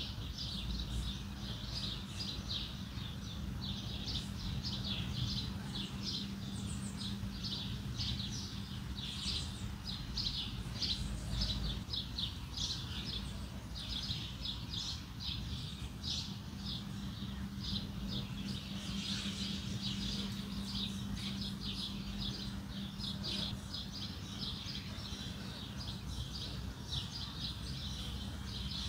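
Many birds chirping at once, a dense run of short, high chirps over a steady low hum.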